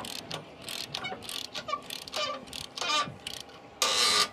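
Ratchet wrench with a 15/16-inch socket tightening the locking bolt of a hitch-mount rack into the receiver: short runs of ratchet clicks on each stroke, with a longer, louder run near the end as the bolt is snugged up.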